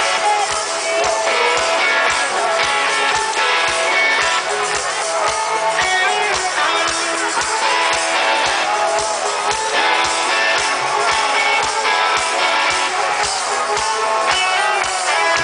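A live rock band plays an instrumental passage: electric guitars over a steady drum beat of about two to three strokes a second, heard loud from within the crowd.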